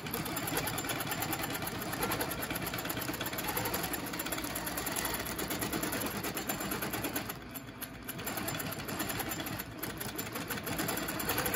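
Quilting machine stitching steadily at speed, its needle running in a fast even rhythm; the stitching eases off briefly twice, about seven and a half and nine and a half seconds in.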